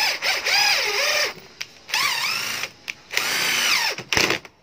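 Cordless drill driving a screw through an acrylic plate into wood, run in three bursts with a short fourth one near the end; its motor whine rises and falls in pitch within each burst.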